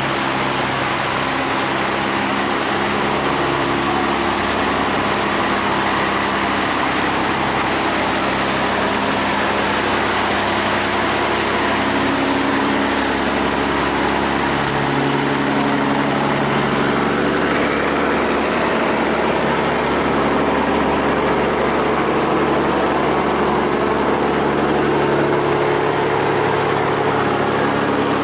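Boat engines running steadily as barges pass through a sluice gate, over a constant rushing noise. The low engine hum changes pitch several times as different engines come and go.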